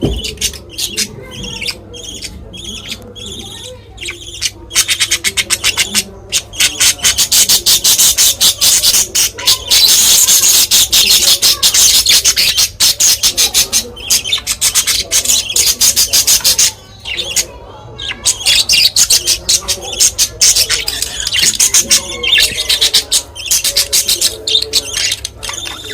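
Budgerigars chattering with fast, high-pitched chirps, loudest through the middle, with a brief lull about two-thirds of the way through.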